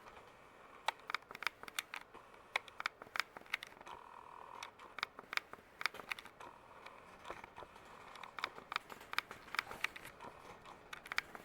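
Craftmade ceiling fan running on high speed, with light, somewhat uneven clicking about three times a second over faint hiss, while the fan wobbles a little.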